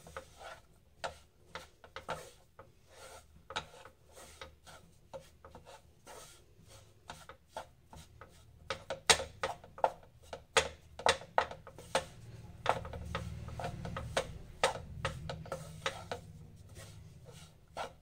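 Flat wooden spatula scraping and pressing roasting gram flour against a nonstick kadhai in quick repeated strokes, a few a second, louder in the second half. A low hum comes in for a few seconds in the second half.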